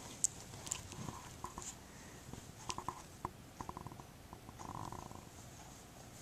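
Faint rustling and scattered soft clicks from a fluffy kitten being held and moved against the microphone, with a brief soft rumble about five seconds in.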